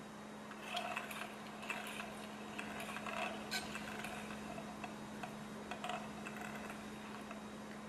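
Low-temperature gamma-type Stirling engine on a cup of hot water, turning slowly after a hand start: faint, irregular mechanical ticks from its crank and linkage, roughly one a second, over a steady low hum.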